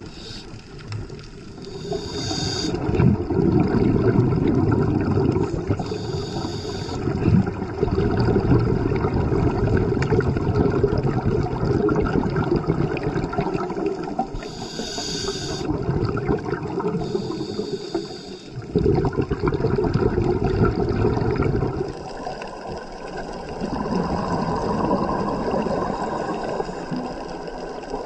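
Scuba diver breathing through a regulator underwater: four short hissing inhales, each followed by a long stretch of exhaled bubbles.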